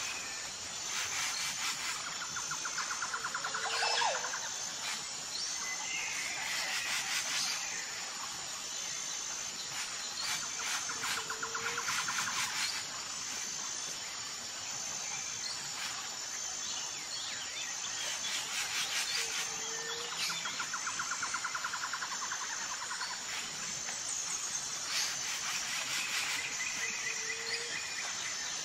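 Birds chirping over a steady high insect trill. The same run of bird calls comes back about every eight seconds.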